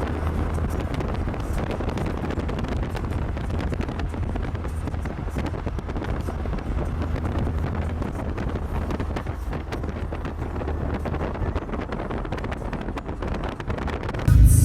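Steady rumble and rushing road noise of a moving car, with wind buffeting the microphone.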